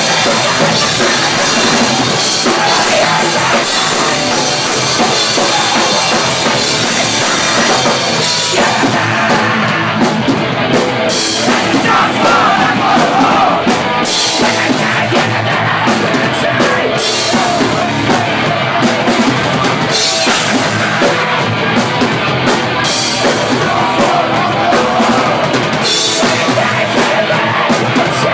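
Live rock band playing loudly: drum kit with cymbals, bass guitar and a singer on a microphone.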